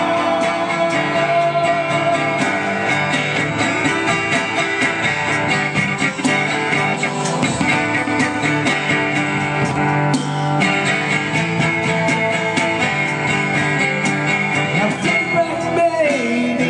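Live acoustic song: a steel-string acoustic guitar strummed steadily under male and female singing.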